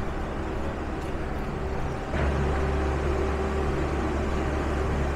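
Low, steady rumble of a motor vehicle, growing louder and deeper about two seconds in.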